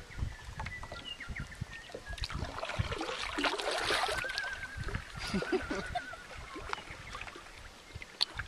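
Water splashing and lapping with irregular small splashes, busiest a few seconds in, and a faint warbling whistle partway through.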